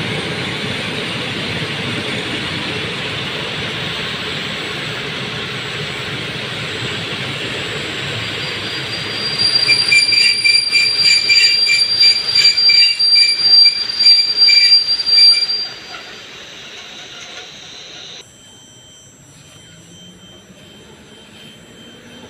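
Intercity passenger coaches rolling along the platform. About nine seconds in a loud, pulsing, high-pitched metallic squeal from the wheels starts and lasts around six seconds, then the noise drops away sharply.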